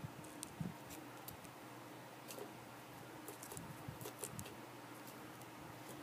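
Faint handling noise: scattered small clicks and a few soft knocks as a finger nudges a cicada on a smooth surface.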